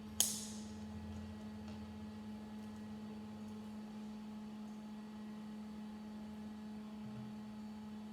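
A steady electrical hum, with one sharp click of plastic Lego pieces just after the start.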